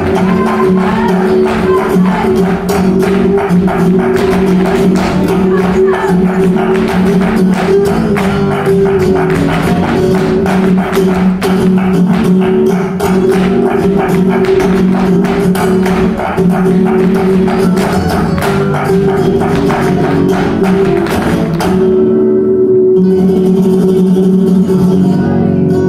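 Live flamenco music for a farruca: pitched accompaniment with dense, rapid percussive clicking from the dancers' footwork on the stage floor. The clicking stops about 22 seconds in, leaving the music alone.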